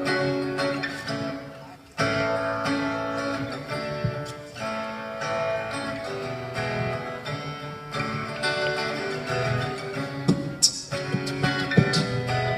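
Guitar strumming chords as music plays, stopping briefly and starting again about two seconds in.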